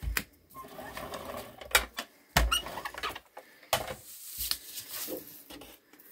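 Sheets of cardstock being handled on a cutting mat: papery rustling and sliding with several sharp taps and flaps as the sheets are laid down and lifted.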